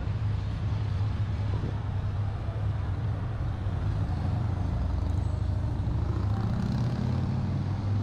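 Heavy truck's diesel engine running close by: a steady low rumble over street traffic noise.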